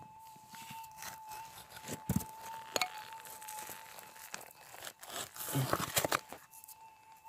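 Rock and gravel scraping, crunching and clicking irregularly as a rock is prised out of a bedrock crevice by hand, mixed with camera handling knocks.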